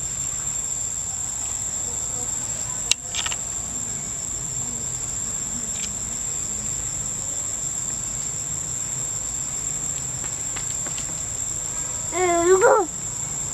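Steady high-pitched drone of forest insects, with a sharp click about three seconds in and a short wavering call near the end.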